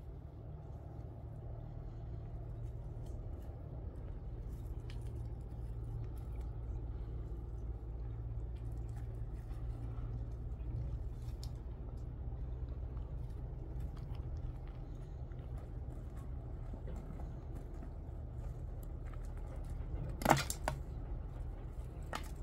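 Steady low rumble of wind on the microphone, with a few light scattered clicks and one sharp knock near the end.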